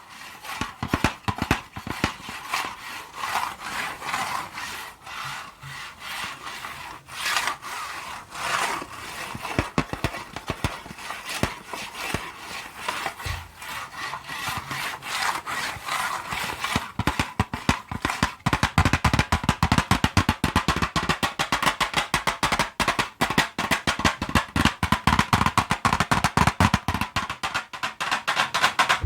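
Colored pencils scratching in rapid back-and-forth strokes, a dense dry rasping that grows faster and louder a little past halfway.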